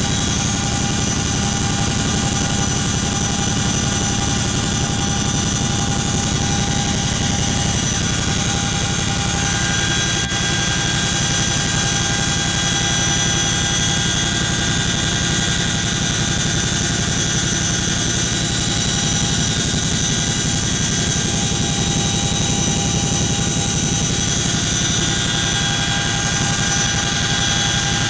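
Boeing CH-47 Chinook tandem-rotor helicopter in flight, heard from inside its cabin: a steady, loud low rumble with a steady high whine over it.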